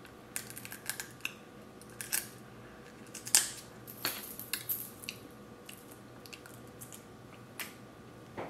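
Crab leg shell being cracked open: a scatter of small cracks and clicks, the sharpest a little over three seconds in.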